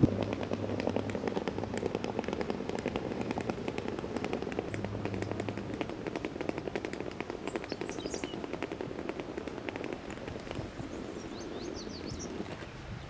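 Small wheels of a rolling suitcase rattling over brick paving, a rapid, uneven stream of clicks that fades a little toward the end.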